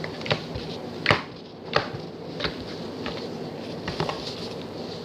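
Smoothie-textured slime being squeezed and stretched by hand, giving a handful of sharp wet pops and clicks at irregular intervals over a steady hiss.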